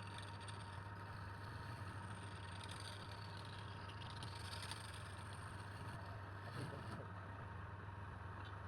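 Steady low motor hum running evenly, with no distinct knocks or cuts.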